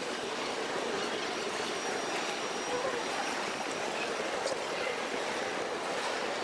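Steady hiss-like background noise of a busy station concourse, with faint ticks here and there and no low rumble.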